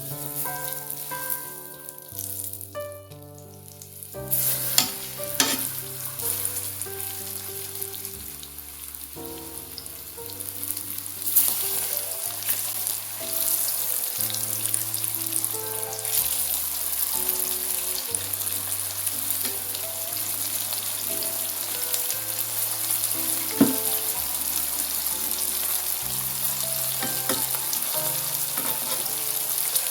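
Pork schnitzels frying in hot oil in a pan: a steady sizzle that grows louder about eleven seconds in, with a few sharp clicks. Background piano music plays throughout.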